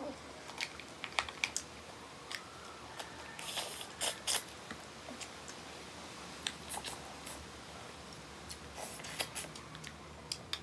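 Close-up sounds of eating crab and seafood by hand: chewing and biting with many scattered sharp clicks as shell is handled and picked apart, and a few louder crackles near the middle.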